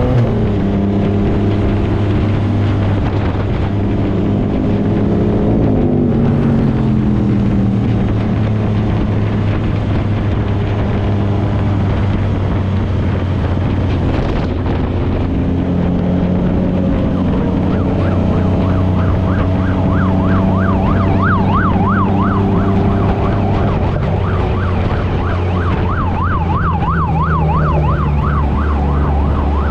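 Vehicle engines running steadily, with some rising and falling revs in the first few seconds. A bit past halfway an emergency-vehicle siren joins in, warbling fast in a yelp pattern about four times a second, breaking off briefly and then resuming.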